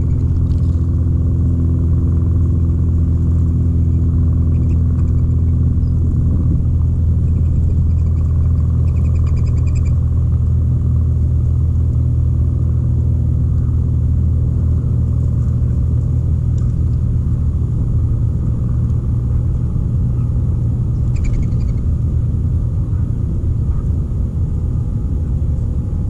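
A steady low machine drone, like an engine or motor running at a constant speed. A few faint short bird calls sound over it, one a quick trill about eight to ten seconds in.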